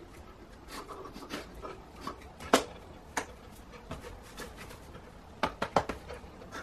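A man's short, sharp gasping and panting breaths, uneven and scattered, with one loud gasp about two and a half seconds in and a quick run of three or four near the end.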